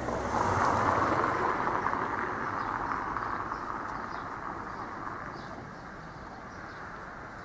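A passing vehicle's noise swelling about a second in, then slowly fading away over several seconds.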